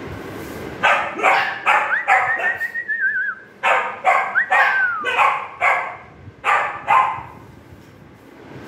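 Dog barking: about a dozen short, sharp barks in two quick runs with a brief pause between them. Two high, thin, wavering tones rise and fall among the barks.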